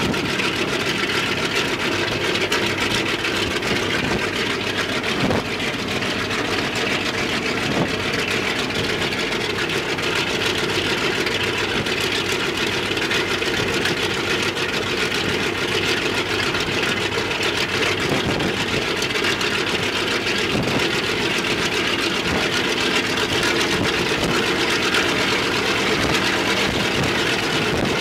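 Ilyushin Il-14T's left engine, a Shvetsov ASh-82T fourteen-cylinder radial, running steadily on a ground run.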